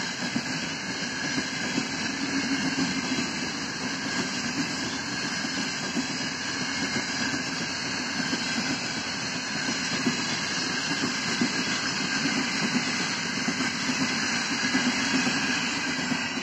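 Passenger train coaches rolling past at speed: a steady rumble of wheels on rail with occasional sharp clicks.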